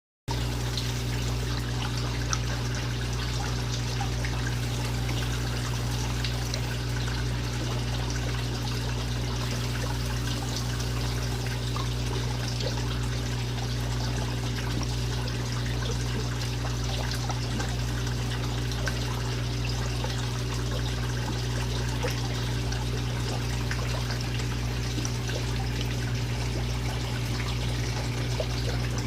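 Aquarium water trickling steadily over a constant low hum.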